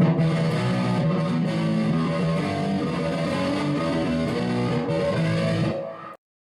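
Intro music with distorted electric guitar, which fades and then cuts off to silence about six seconds in.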